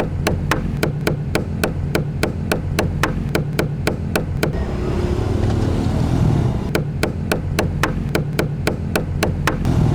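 Rapid, evenly spaced sharp impacts from upholstery work on a sofa, about four a second, stopping for about two seconds midway and then resuming, over a steady low hum.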